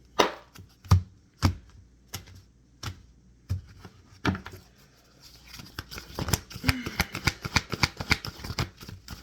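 A deck of oracle cards being handled and shuffled: a few separate sharp card clicks, then from about five and a half seconds in a rapid run of shuffling clicks.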